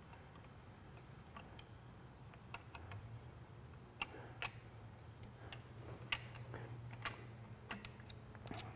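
Small light clicks and ticks, irregular and scattered, of screws and a hand tool against a sewing machine's plastic belt guard as it is screwed on, over a low steady hum.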